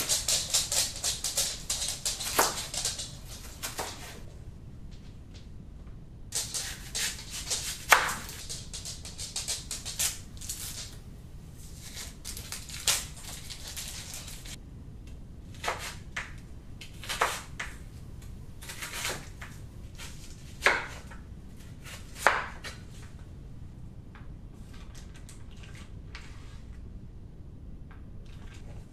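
Chef's knife chopping green bell pepper and onion on a wooden cutting board: a fast, even run of chops in the first few seconds, then scattered single cuts, several of them sharp and loud.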